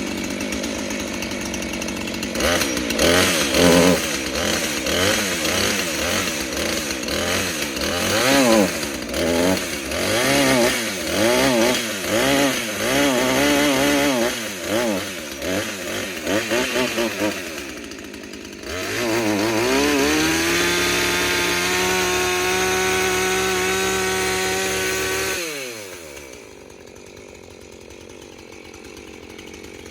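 Husqvarna Rancher 450 two-stroke chainsaw cutting wood, its engine speed rising and falling over and over as the chain bites and bogs under load. Near the end it revs up to a steady high pitch for about five seconds, then drops off suddenly and goes much quieter.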